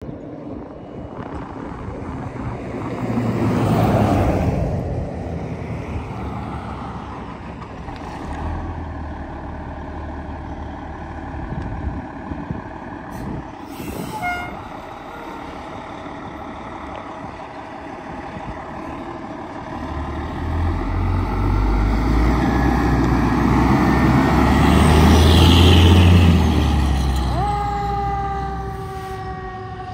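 Fire engine's diesel engine running, then revving hard as the truck pulls out and passes, loudest a few seconds before the end. About halfway there is a brief hiss of air and a short tone, and near the end the electronic siren starts to wail.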